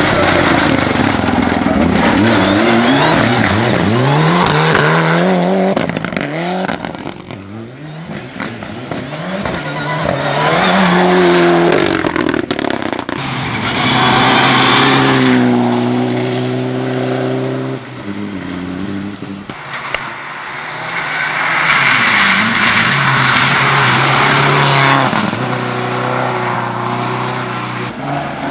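Rally cars, among them Mitsubishi Lancer Evolutions, driving flat out on gravel stages, one after another: engines revving up and down through gear changes, sometimes held at high revs, with tyre noise on the loose surface.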